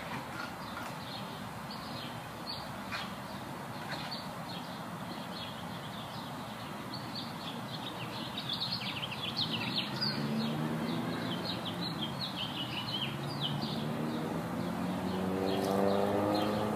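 Small birds chirping and twittering in quick short notes, busiest in the middle. A low, pitched hum builds up over the last several seconds.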